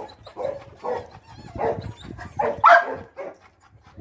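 Dogs barking in a quick irregular series of six or seven barks, with one higher, louder bark about two and a half seconds in.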